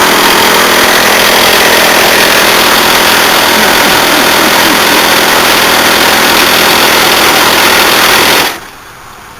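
Crushed TECO window air conditioner running loud and steady, its rotary compressor straining against mounting head pressure with the condenser coil flattened and the system charged with compressed air. Near the end the noise cuts off suddenly as the unit shuts itself down, which the owner takes for the thermal cutout tripping.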